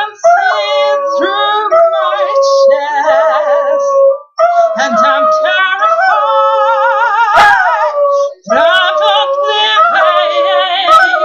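A dachshund howling in long, wavering notes together with a woman singing, the two voices overlapping.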